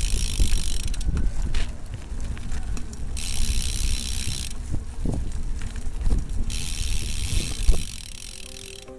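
BMX bike rolling on concrete, its rear hub ratchet buzzing in spells of a second or two with gaps between, over a steady low rumble of the tyres. A sharp knock comes near the end.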